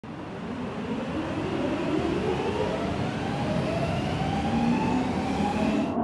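Vehicle noise: a rumble with a whine that rises slowly in pitch and grows steadily louder, as of a vehicle speeding up.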